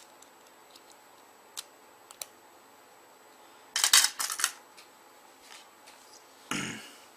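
Small clicks of phone parts being handled as the PCB board is fitted back into a BlackBerry 9650, with a brief clatter of several quick clicks about four seconds in and a duller knock near the end.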